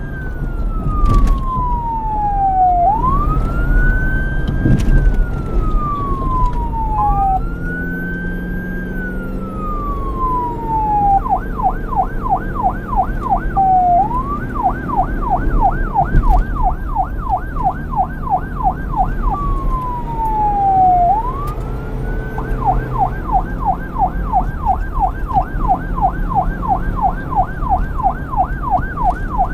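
Electronic police siren alternating between a slow wail, a quick rise and a long falling sweep about every four seconds, and a fast yelp of about three sweeps a second, which takes over from about a third of the way in with brief returns to the wail. A low rumble runs underneath.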